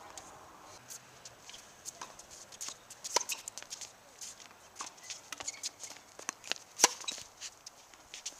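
Tennis rally on a hard court: tennis balls struck by racquets and bouncing, with two louder hits about three and a half seconds apart and many lighter clicks and taps between them.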